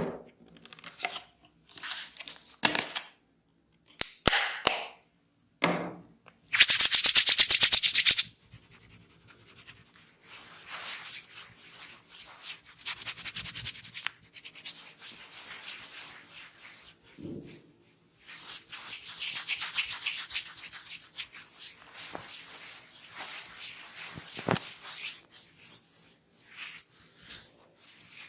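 Close-miked scratching and rubbing of hair and scalp during dandruff scratching, in short scratchy strokes and longer stretches of rapid raking. About six seconds in there is a loud burst of fast scratching lasting under two seconds.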